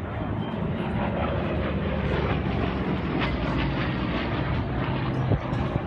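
Airplane engine running steadily as an aircraft flies over the airshow field.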